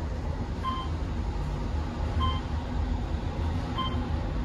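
Otis Series 1 traction elevator car running down quickly: a steady low rumble of travel. A short electronic beep sounds each time a floor is passed, three times about a second and a half apart.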